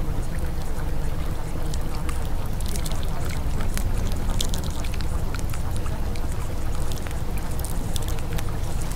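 Steady watery background noise with many scattered small drip-like clicks, like water pouring or trickling. It runs evenly, with no breaks.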